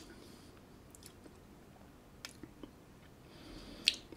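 Faint mouth sounds of someone savouring a sip of whisky: scattered lip smacks and tongue clicks, then a short breath with the sharpest smack near the end.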